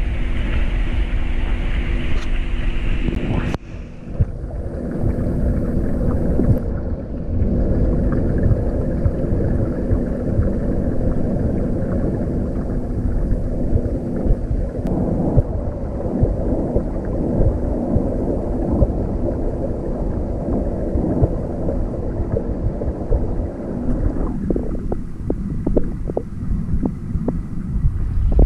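Muffled underwater rumble and water noise picked up by a GoPro in its waterproof housing submerged in a marine aquarium tank, with a steady low hum running through it. A brighter hiss cuts off a few seconds in as the camera goes fully under, and a run of light knocks comes near the end.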